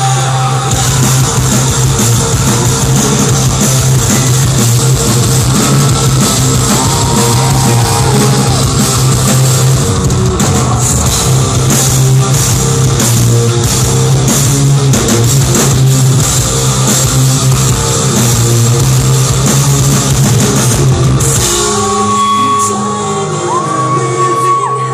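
Live rock band playing loud distorted electric guitars, bass and drums with a sung vocal. About 21 seconds in, the heavy playing drops away to a sparser, quieter passage with a held guitar tone.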